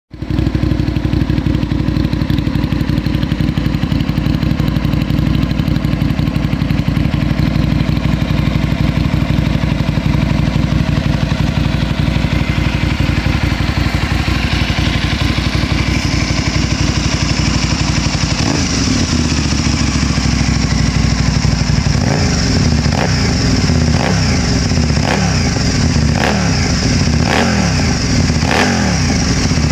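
Aprilia RSV 1000's 60-degree V-twin engine running through its exhaust, steady at first; a little over halfway the engine note starts rising and falling, with a run of sharp cracks near the end.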